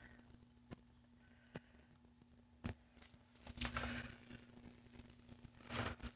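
Quiet room with a faint steady hum, three short clicks in the first three seconds and two brief rustles, one in the middle and one near the end: handling noise from a phone camera being moved around.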